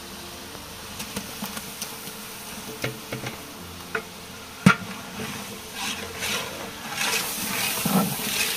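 Fish heads frying in spiced masala in a pan, stirred with a spatula: scattered knocks of the spatula against the pan with one sharp clack about halfway, and sizzling that grows louder near the end as the fish fries.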